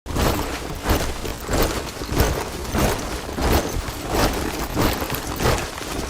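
A group of soldiers marching in step, their boots striking the ground together about every two-thirds of a second.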